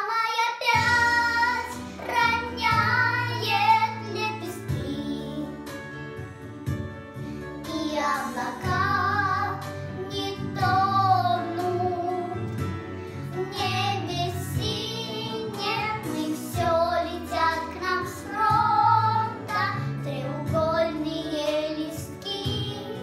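Two seven-year-old girls singing a Russian song together over an instrumental accompaniment with sustained bass notes.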